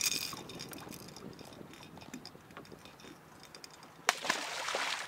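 Light clicks and clinks of a fishing hook and terminal tackle being handled while the hook is rebaited with cut gizzard shad. About four seconds in there is one sharp click, then a brief hiss.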